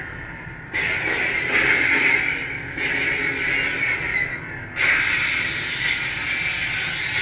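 Sabertrio CFX lightsaber playing effect sounds from its sound font through its built-in speaker: a harsh hissing, squealing sound starts suddenly about a second in and fades after a couple of seconds, then starts suddenly again about five seconds in and carries on, over the saber's lower steady hum.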